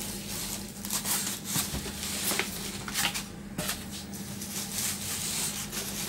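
Bubble wrap and plastic packing rustling and crinkling while a flat-screen TV is handled and slid out of its polystyrene foam end caps, with a few sharper crackles.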